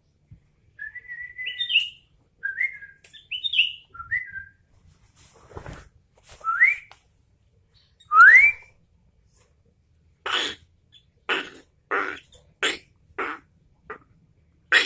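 Sooty-headed bulbul singing: short fluting whistled phrases, then two rising whistles. It ends with a run of about six harsh chattering notes.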